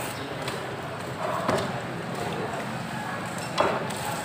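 Busy market background of voices and clatter, with short knocks of a filleting knife against a wooden cutting block: one about a second and a half in and a sharper one near the end.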